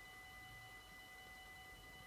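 Level-crossing warning bell ringing faintly and steadily, a continuous metallic ring heard while the crossing is closed with its barriers down.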